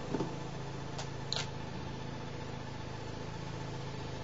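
Steady mechanical hum, like an idling engine, with two light clicks about a second in.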